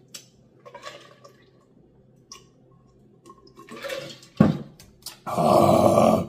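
A man takes quiet sips and swallows of a drink from a mug, then makes a short sharp sound about four and a half seconds in. Near the end comes a loud, breathy, open-mouthed exhale, an 'ahh' lasting about a second.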